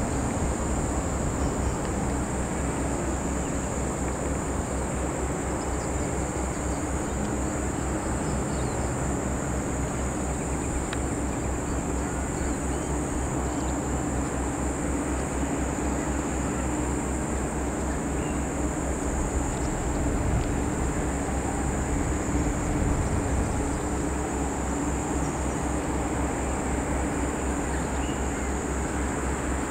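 Steady outdoor ambience: a continuous high-pitched insect drone over a constant low rumble, with no distinct calls or events.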